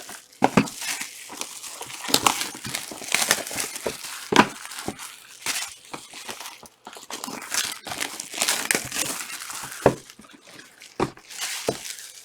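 Plastic wrapping on sealed trading-card boxes and packs crinkling and tearing as they are handled and opened, with irregular crackles and a few sharp knocks.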